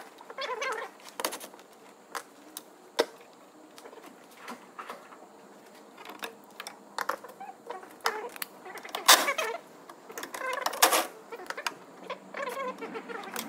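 Scattered clicks, knocks and rattles of hands and tools working loose plastic connectors and parts in a car engine bay, with a few short bursts from a cordless ratchet, the loudest a little past halfway.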